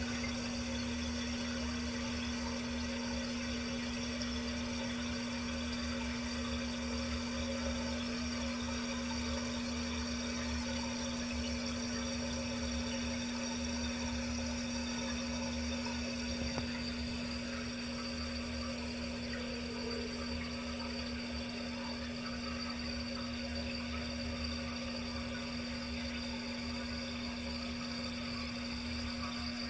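Toilet cistern refilling through a newly fitted fill valve, a steady rush of water with a steady low hum under it, the sign that the replaced valve is letting water in properly.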